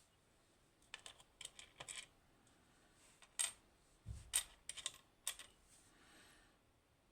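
Small metal lock parts and tools clicking and tapping as a pin-tumbler lock is taken apart: a series of light, irregular clicks, with a dull knock about four seconds in.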